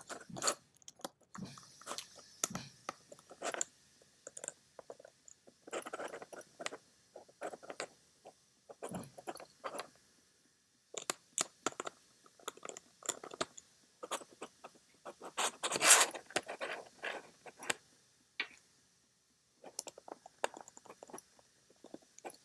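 Irregular small clicks, taps and scrapes as tiny lock screws and a small magnet are handled on a work surface, loudest about 16 seconds in.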